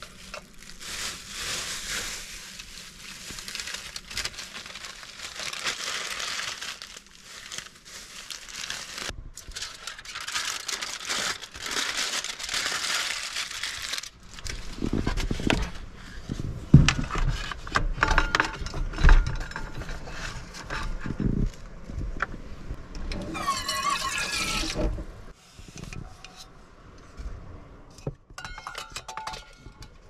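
Aluminium foil crinkling as it is peeled off a frying pan and crumpled, then knocks and clatter of cookware being handled at a small sink, with light metal clinks near the end as a stainless steel cup is hung on a hook.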